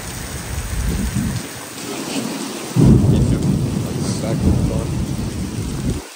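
Heavy rain pouring down with thunder rumbling. A louder rumble breaks in suddenly about three seconds in, and the low rumbling cuts off abruptly just before the end, leaving the rain.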